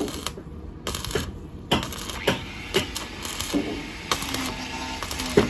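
Sharp knocks repeating about twice a second.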